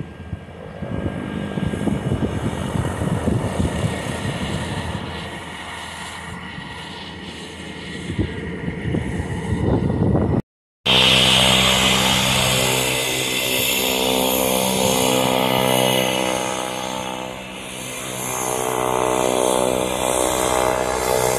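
Cessna Grand Caravan's single Pratt & Whitney PT6A turboprop running as the plane taxis: a steady propeller drone with a whine over it. The first half is rough and gusty. After a brief cut near the middle the drone is smooth, with many even tones, and swells near the end as the plane turns toward the microphone.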